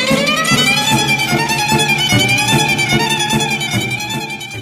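Background music with a wavering melody over a steady beat, fading out near the end.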